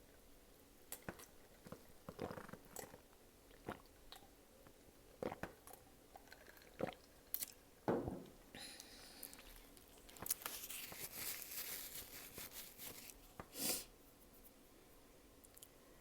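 A person eating close to the microphone: chewing and biting with crunchy bites and mouth clicks. The sounds are sparse at first and become a denser stretch of crunching in the second half.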